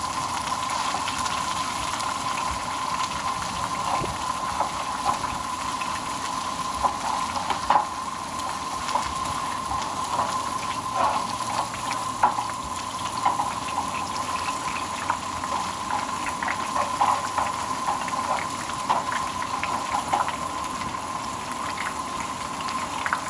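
Breakfast food frying in oil in a pan, a steady sizzle dotted with small crackles and pops.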